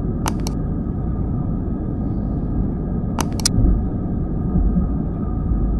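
Steady engine and runway rumble heard inside the cabin of an Airbus A320 on its takeoff run, with a faint engine tone above it. Sharp mouse-click sound effects cut in twice: a quick double click just after the start and a quick triple click about three seconds in.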